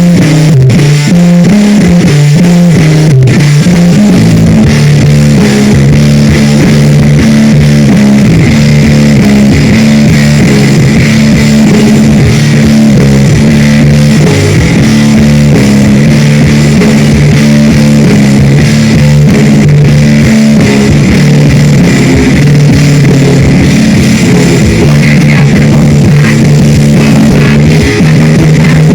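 Live metal-punk band playing: distorted electric guitar riffing on low repeating notes over bass guitar and a fast-hit drum kit, recorded at full loudness.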